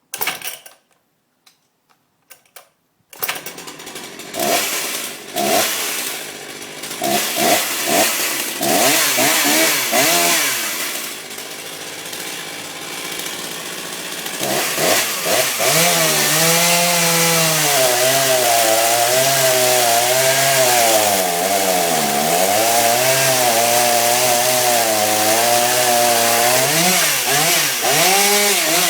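Husqvarna 246XPG two-stroke chainsaw being started. After a sharp sound at the start, it catches about three seconds in and is blipped with short bursts of throttle. It settles to a lower idle, then from about fifteen seconds is held revved up with its pitch wavering up and down, and drops back near the end.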